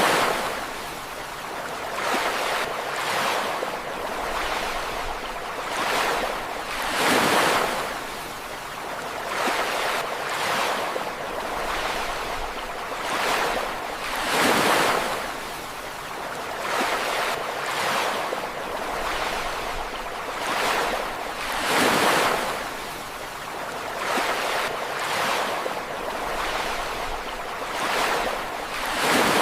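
Ocean waves breaking on a shore, one swell of surf every two to three seconds with a few larger breakers standing out, over a steady wash of water.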